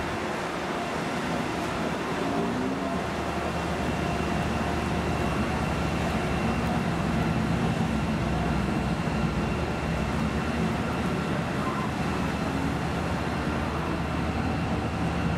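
DSB ME class diesel-electric locomotive approaching with a passenger train. Its engine is a steady low drone that grows gradually louder as it nears.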